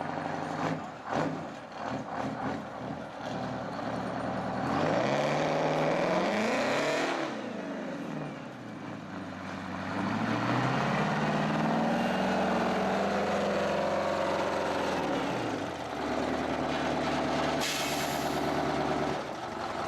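Detroit Diesel engine in a rat rod being revved with open exhaust: a few quick blips, then two long revs that climb and fall back, the second held near the top for several seconds. A short burst of hiss comes near the end.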